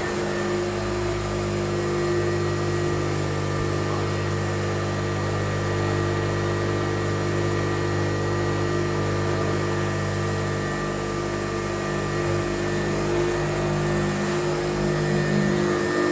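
1940s Hoover Model 26 upright vacuum cleaner running steadily: its motor and fan give a constant tone over a rush of air.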